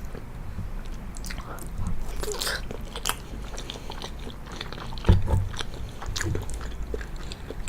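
Close-miked chewing of penne pasta in a pesto and hummus sauce, with many short, irregular wet mouth clicks. A low thump comes about five seconds in.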